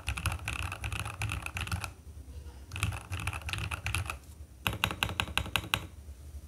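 Mechanical keyboard with Akko ASA-profile keycaps being typed on in quick runs of keystrokes: three bursts of clacking with short pauses between, easing off near the end.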